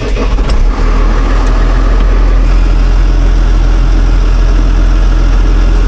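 Case tractor's diesel engine idling steadily, a loud, even low hum that settles in about a second after some uneven sound at the start.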